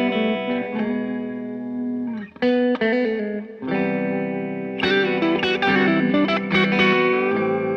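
Electric guitar played through a Morgan Dual 20 amplifier, starting with a held note and chords. The playing breaks off briefly about two and a half seconds in, then resumes as a new passage of quicker picked notes.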